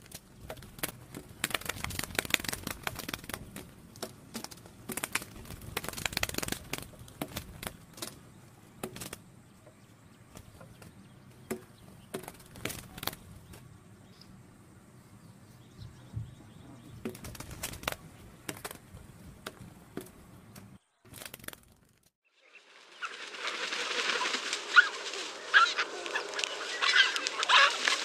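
Irregular clicks and crackles over a faint low rumble. For the last five seconds or so, a louder, dense chorus of bird calls with honking notes.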